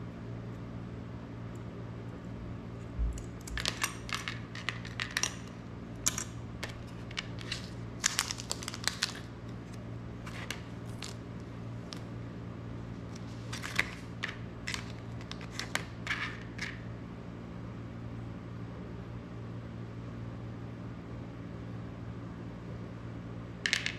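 Clicks, taps and crinkling of small electronic parts and plastic packaging handled on a desk, in two runs of several seconds with one more click near the end, over a steady low hum.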